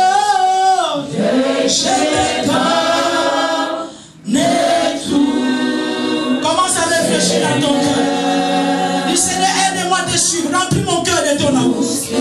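Unaccompanied worship song sung by a woman into a microphone, with other voices joining in; the singing breaks off briefly about four seconds in.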